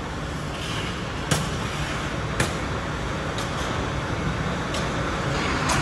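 Steady rumble of tile-factory machinery, with a handful of short, sharp clicks or knocks at uneven intervals.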